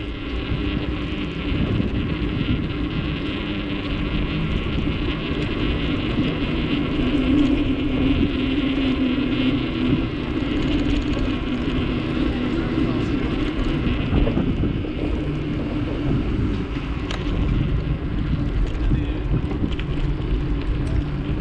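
Wind rushing over the microphone with a steady low rumble of tyres rolling on the path as a bicycle rides along.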